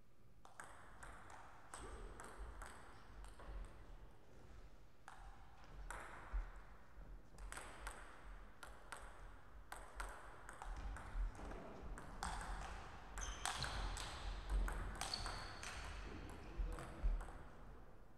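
Table tennis ball clicking sharply and repeatedly off the paddles and the table, in irregular runs of hits, with some louder strikes in the second half.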